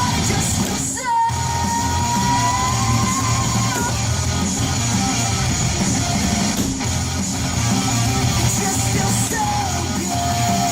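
Rock music with singing and electric guitar, played loud. A voice holds one long note from about one second in to about four seconds in, and another near the end, after a brief break in the music about a second in.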